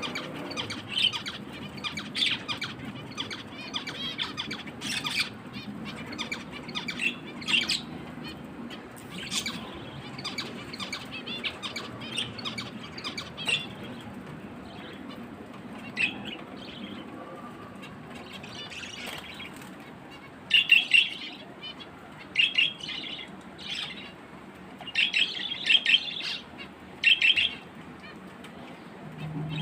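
Small finches chirping in short, quick calls, with louder, busier bursts of chirping in the last third.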